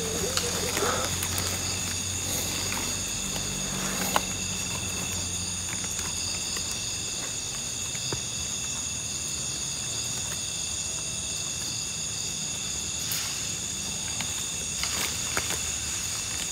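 Steady chorus of night insects: several high, even buzzing tones held throughout. A low hum underneath stops about six seconds in, and there are a few light rustles and clicks.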